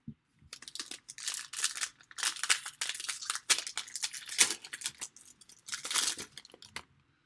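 Shiny wrapper of a Panini Contenders Draft Picks trading-card pack crinkling and tearing as it is ripped open by hand: a dense run of crackles from about half a second in, dying away near the end.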